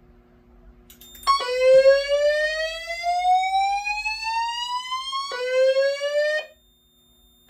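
Fire alarm voice-evacuation system sounding its slow-whoop alarm tone through its speakers, signalling that the panel has gone into alarm. It starts about a second in as one long rising sweep of about four seconds, then a second sweep starts and is cut off after about a second, ahead of the spoken evacuation message.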